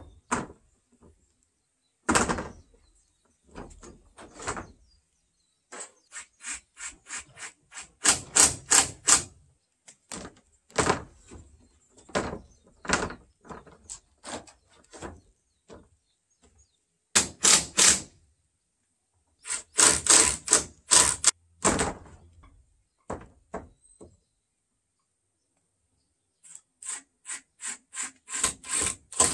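Hammer striking nails through corrugated roofing sheets into the roof timbers: quick runs of sharp knocks, several a second, broken by pauses, with a single heavier knock about two seconds in.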